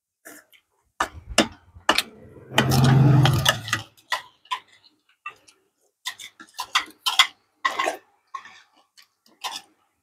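Eating sounds close to a clip-on microphone: irregular clicks of chopsticks and spoons against ceramic bowls, with chewing and lip smacks. About three seconds in there is a louder, noisy sound lasting about a second.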